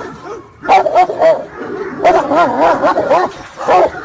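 A dog barking in a rapid, excited series, several barks a second, picking up again after a brief pause at the start.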